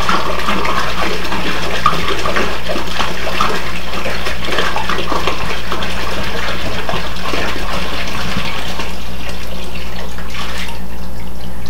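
Water pouring out of a 3-gallon jug into a plastic hydroponics bin as it is refilled, a steady splashing pour that dies away near the end.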